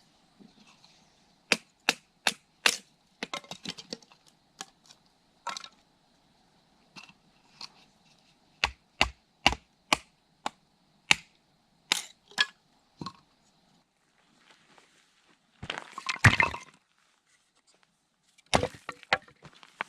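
A series of sharp, irregular cracks and snaps, some single and some in quick clusters, with a louder rustling crunch lasting about a second near the end.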